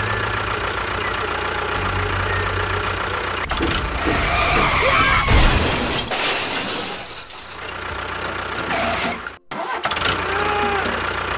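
An engine running, louder and rougher for a couple of seconds in the middle, with the sound cutting out for an instant about nine and a half seconds in.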